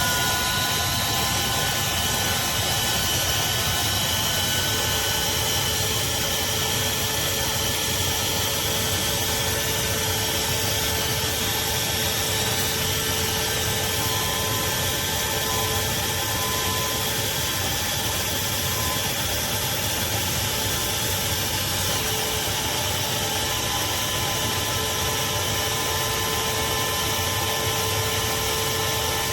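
Craftsman 16-gallon, 6.5 peak HP wet/dry shop vacuum running steadily: an even rush of air with a constant motor whine.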